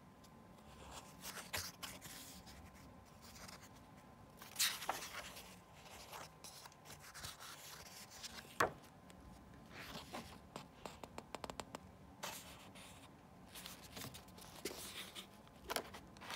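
Pages of a book being handled and turned: paper rustling and swishing, with a sharp tap about eight and a half seconds in and a quick run of small ticks around eleven seconds in.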